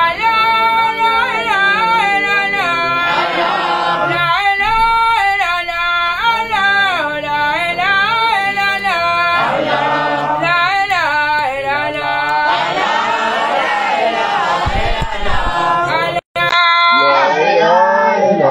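A man singing unaccompanied, a slow melismatic chant with long, wavering held notes. The voice cuts out for a moment near the end and then goes on.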